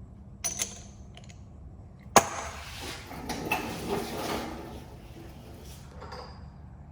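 Metal barrel inserts and parts of a pistol test fixture being handled. There are two light clicks, then a sharp clack a couple of seconds in, followed by a few seconds of rattling and scraping.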